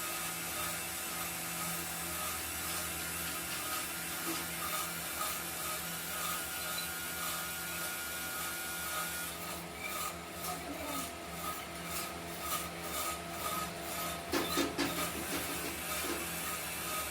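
A steady workshop machine hum, joined about halfway through by rhythmic rasping strokes on metal, two to three a second, with a few louder strokes near the end.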